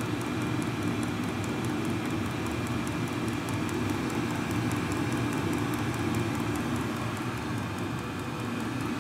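VEVOR 8 kW diesel air heater running after ignition: a steady, low rushing of its combustion-air fan and burner. Over it comes a quick, regular ticking from the fuel dosing pump.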